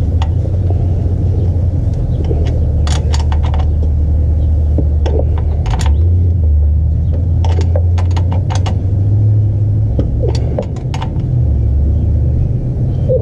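Sharp metallic clicks and clinks from a wrench working a clutch-line fitting, coming in small clusters, over a steady low rumble.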